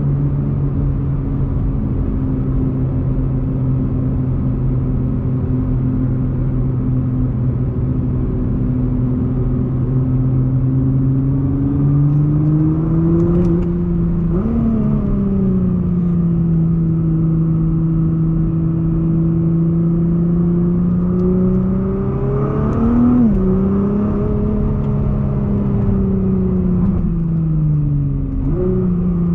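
Nissan GT-R R35's twin-turbo V6 running under way at a steady engine note. The note climbs slowly and jumps abruptly in pitch three times: about halfway through, about three quarters of the way through, and near the end.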